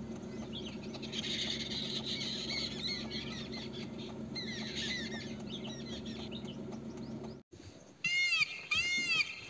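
Birds chirping over a steady low hum, which cuts off sharply about seven and a half seconds in. Then Indian peafowl calling: three loud, arching cries about half a second apart near the end.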